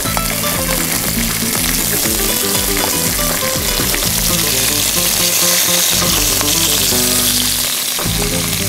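Chicken pieces sizzling steadily as they fry in hot oil in a cast iron pot, with background music playing.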